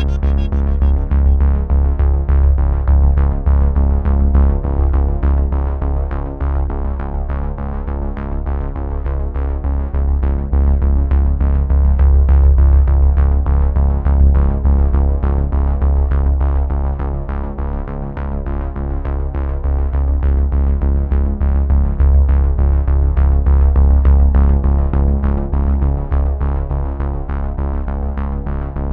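Background music led by synthesizer, with a strong bass and a steady, quick beat.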